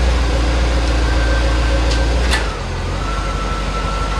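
Chevrolet Corvette C4's V8 engine running on a freshly replaced fuel pump and fuel filter, held at raised revs and then dropping back to a lower, steady idle about two and a half seconds in. A short sharp click comes just before the revs drop.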